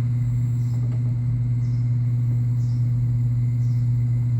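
A steady low-pitched hum, unchanging throughout.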